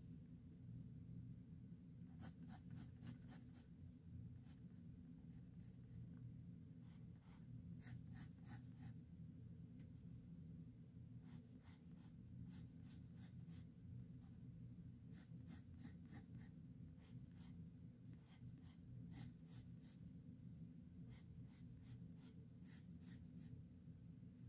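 Pencil scratching on sketchbook paper in faint runs of quick back-and-forth strokes, with short pauses between the runs. A steady low hum sits underneath.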